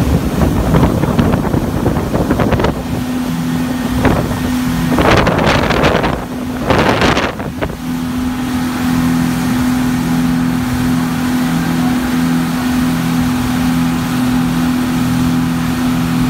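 Boat engine running at a steady pitch, with the rush of wind and water over it for the first few seconds. Two loud rushes of noise come around five and seven seconds in.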